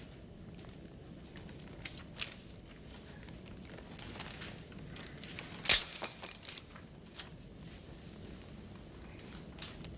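Paper test booklets rustling and crinkling as pages are turned and handled, in short scattered bursts over a low steady room background, with one brief, sharper and louder noise about six seconds in.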